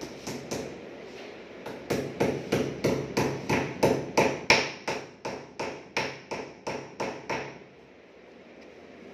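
A hammer strikes at a PVC wall panel: two blows at first, then a rapid, even run of about three blows a second for some six seconds, stopping suddenly.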